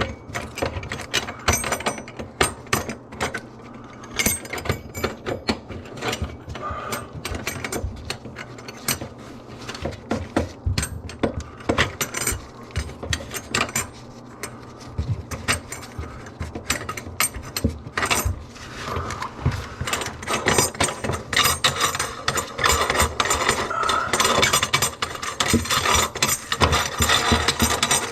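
Hand tools and plumbing parts being handled: repeated clicks, knocks and rattles, growing busier and more continuous from about two-thirds of the way in.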